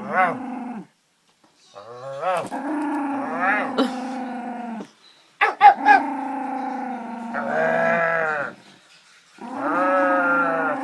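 Dog growling in long, steady, pitched growls, about three bouts with short pauses between, plus a few sharp louder sounds near the middle: possessive growling while guarding her snacks.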